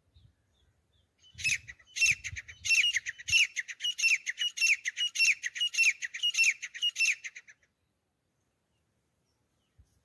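Grey francolin calling: a loud, rhythmic series of repeated harsh notes, about two a second, each note falling in pitch. It starts about a second in and stops a little past halfway.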